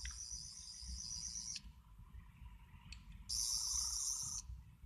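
Toy Tenth Doctor sonic screwdriver's electronic sound effect: a high-pitched warbling whirr that cuts off with a click about a second and a half in and switches back on for about a second near the end.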